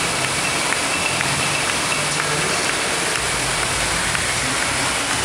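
Steady rushing hiss of water splashing and spraying in an indoor waterpark.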